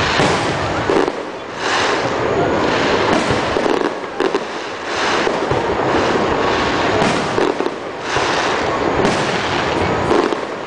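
Fireworks display: a dense, continuous barrage of aerial shell bursts, one bang after another with no gaps between them.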